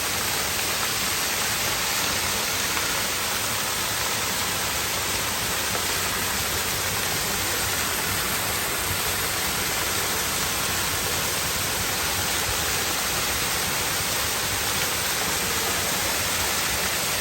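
Steady rushing of the Kintampo waterfall heard close by: an even, unbroken wash of falling water.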